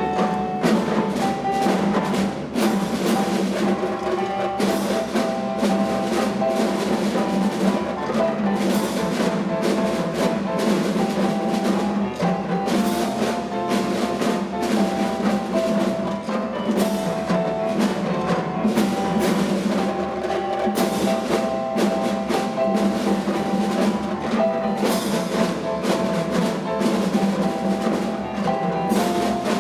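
Music with prominent percussion: drums and wood-block clicks over a held melody.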